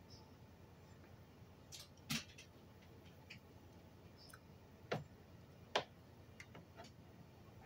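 Metal spoon clicking and knocking against a plate as food is scooped up, with three louder knocks about two, five and six seconds in and fainter clicks between them.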